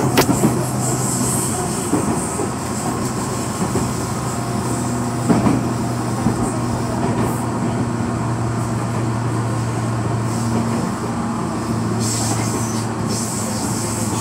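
Tobu Railway electric train running along the line, heard from inside the front car: a steady low hum with rail noise. There is a sharp clack at the start and another about five seconds in, and a high hiss near the end.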